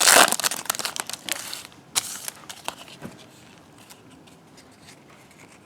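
A trading-card pack wrapper crinkling and tearing as it is opened, loudest in the first second and a half with one more short crinkle about two seconds in, then faint rustles and taps of the cards being handled.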